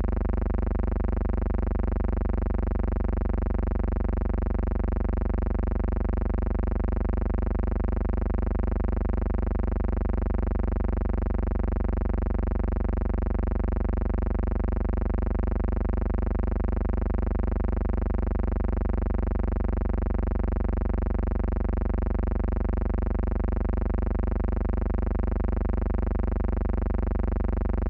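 A steady electrical hum or buzz with many overtones, unchanging throughout and with no other sound over it.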